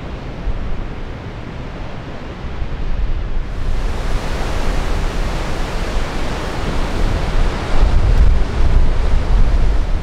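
Wind and ocean surf hiss, with a low rumble of wind buffeting the microphone. The sound grows fuller and louder about three and a half seconds in.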